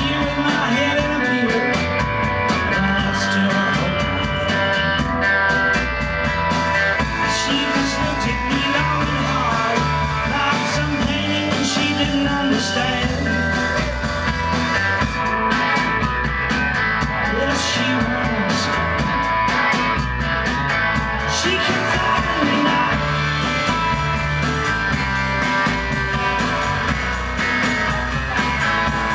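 A garage rock band playing live, with electric guitars and a drum kit and a male singer's voice over them.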